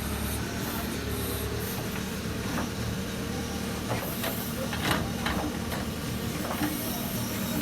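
Case 770FX backhoe loader's diesel engine running steadily under work, with a few sharp clanks and knocks from about four seconds in.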